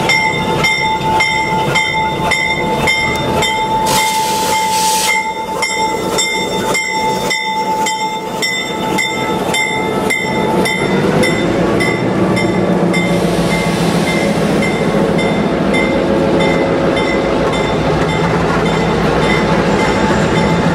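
Diesel locomotive pulling passenger cars slowly past at close range, its engine rumble growing louder about halfway through as it goes by, while a bell rings steadily about twice a second. A short hiss about four seconds in.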